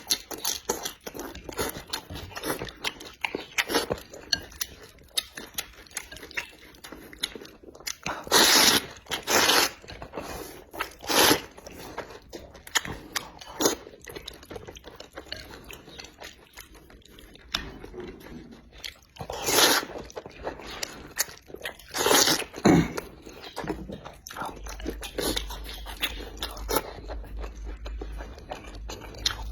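Close-up eating sounds of a person chewing and biting into seafood: many small wet clicks and crunches, with a few louder, longer bites or slurps about a third of the way in and again about two-thirds through.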